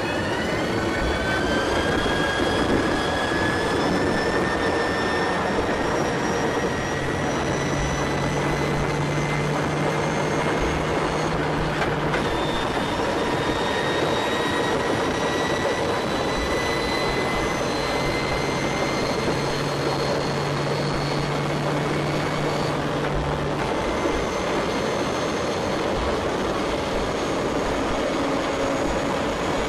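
Inside the cockpit of the Venturi Buckeye Bullet 2 hydrogen fuel-cell electric streamliner at speed: the electric drive's whine climbs steadily in pitch over a loud rush of wind and rolling noise. A steady low hum comes in twice for about five seconds each.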